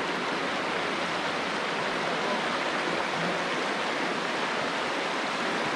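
Shallow river running over cobbles and stones: a steady rushing of water.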